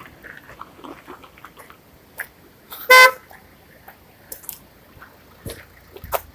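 A car horn gives one short beep, about a third of a second long, about three seconds in, with faint crunching footsteps on a gravel track around it.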